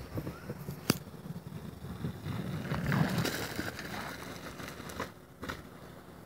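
BMX bike tyres crunching over loose playground ground as the rider passes close, growing louder to a peak about three seconds in and then fading. There is a sharp click about a second in and a couple of knocks near the end.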